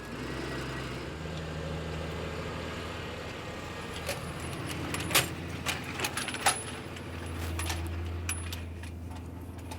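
Tractor engine running steadily while pulling a grubber (cultivator) through the soil, a little louder near the end. Several sharp metallic clinks come in the middle.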